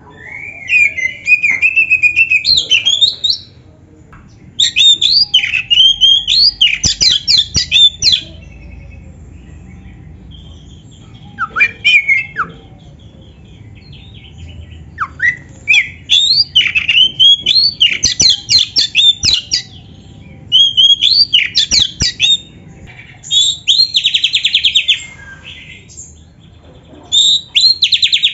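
Oriental magpie-robin singing: loud phrases of varied sweeping whistles and rapid trills, delivered in about seven bursts with short pauses between them.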